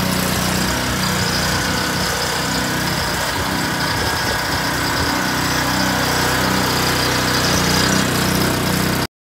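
Small petrol engine on a stone-picker attachment running steadily at idle. It cuts off suddenly near the end.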